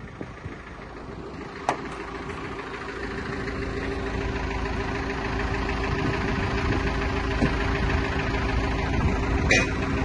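Backhoe loader's engine running steadily with a constant hum, growing gradually louder as the machine swings and lowers a Dana 60 front axle on a chain into a pickup bed. There is a single sharp click a couple of seconds in.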